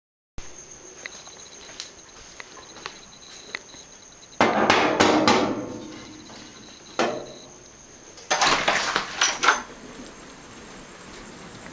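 Knocks and rustling, as of things being handled and bumped, in several loud spells, over a faint high chirping tone.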